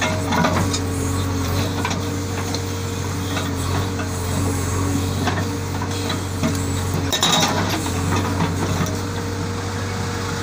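JCB 3DX backhoe loader's diesel engine running steadily while the hydraulic rock breaker rests on the rock, with a few scattered knocks and a louder clatter about seven seconds in.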